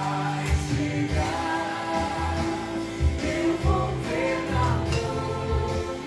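Background music: a pop song with singing over a steady, repeating bass line.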